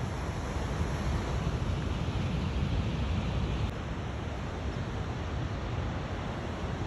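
Wind buffeting the microphone over a steady wash of ocean surf, with a slight drop in level a little past the middle.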